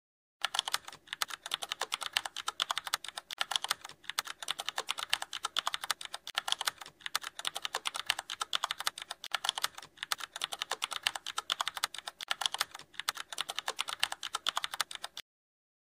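Rapid clicking of computer keyboard typing, many keystrokes a second with a short break every few seconds, starting about half a second in and stopping abruptly about half a second before the end.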